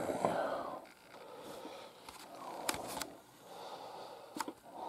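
A person breathing close to the microphone, with a few light clicks.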